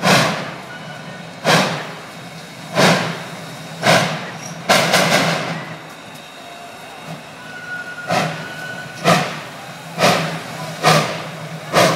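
Steam locomotive working a train at low speed, its exhaust chuffing sharply about once every second or so over a steady low rumble. The chuffs bunch up about five seconds in and pause briefly before picking up again.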